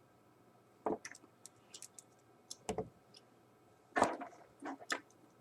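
Plastic action figures being handled and their joints posed: scattered sharp clicks and light knocks of hard plastic, the loudest cluster about four seconds in.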